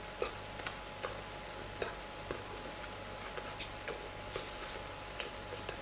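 Soft, irregular clicks and taps, a few a second, from a person signing in sign language, over a steady faint electrical hum.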